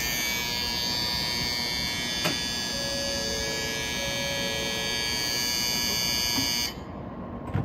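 Shinkansen platform departure bell ringing continuously, a dense high electric ringing that stops abruptly near the end. It signals that the train's doors are about to close. A short thump follows right at the end.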